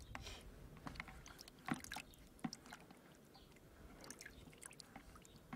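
Faint swishing and dripping of water as a hand moves paper negatives around in a plastic bucket of water, with a few small sharp splashes, the clearest about two seconds in.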